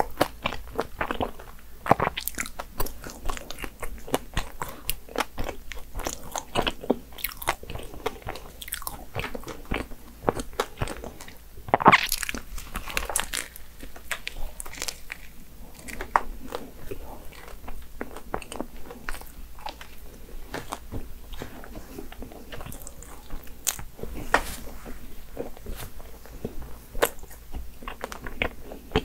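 Close-miked biting and chewing of a flaky chocolate pastry: irregular crisp crunches and crackles with wet chewing between them, the loudest crunch about twelve seconds in.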